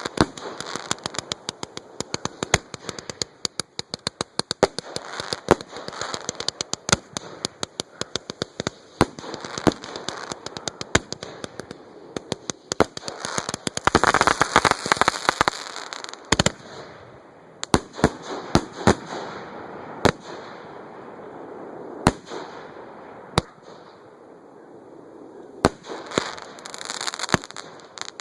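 Aerial fireworks display heard from close to the launch site: a rapid string of sharp shell bursts, a dense crackling stretch about halfway through, then single bangs a second or two apart and more crackling near the end.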